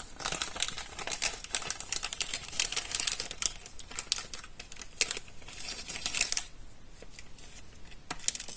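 Hands rummaging through a stock of small microswitches: a dense run of light clicks and crinkling that thins out about six and a half seconds in, with a couple of clicks near the end.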